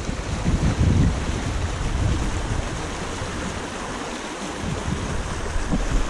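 Steady rush of a small stream pouring over a rocky riffle, with wind buffeting the microphone in irregular low rumbles.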